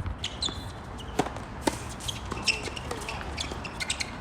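Tennis rally: sharp pops of racket on ball and the ball bouncing on the court, the two loudest about half a second apart near the middle, with short high shoe squeaks and a low wind rumble on the microphone.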